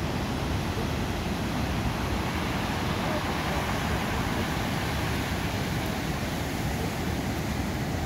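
Ocean surf breaking and washing in: a steady rushing noise, with wind rumbling on the microphone.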